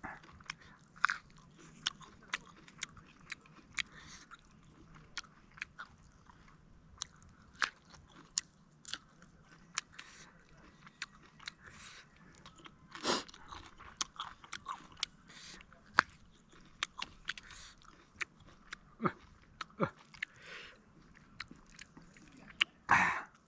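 Close-miked eating: a person chewing and biting with many short, irregular crunches and mouth clicks, a few louder ones about halfway and near the end.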